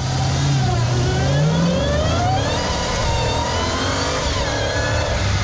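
Dodge Challenger SRT Hellcat's supercharged 6.2-litre Hemi V8 at full throttle, heard from under the hood on the stock intake: the engine note and the supercharger whine rise in pitch for about two seconds, drop back, then carry on steadily.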